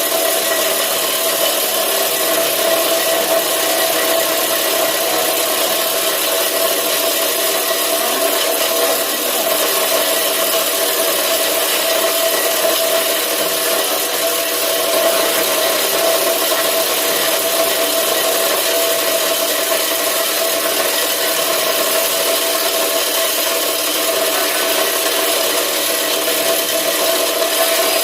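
PVC scrap grinder machine running steadily, a constant whine over a loud, even hiss.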